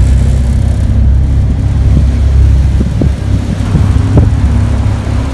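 Tour boat's motor running steadily, a low rumble, with wind buffeting the microphone.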